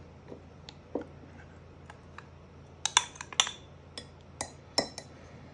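A spoon clinking and tapping against a mug as cherry pie filling is spooned in. The clinks are light and scattered: one about a second in, a quick run of them about halfway through, and a few more near the end.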